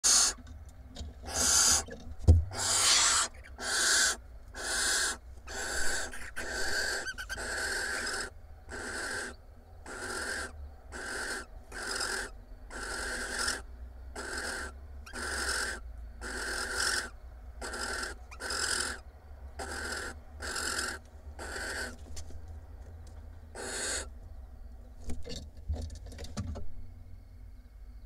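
Barn owls giving harsh, noisy calls in a steady series of about one a second for over twenty seconds, fading to a few scattered calls near the end: food-begging calls at a mouse handover from the male to the female. A sharp knock comes about two seconds in.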